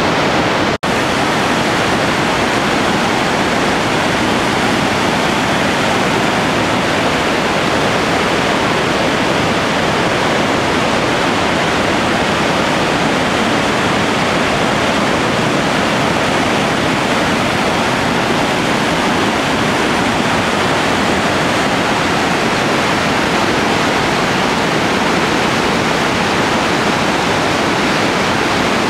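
Merced River rushing through the rapids and cascades at Happy Isles: a loud, steady roar of whitewater with no letup, broken only by a momentary cut-out about a second in.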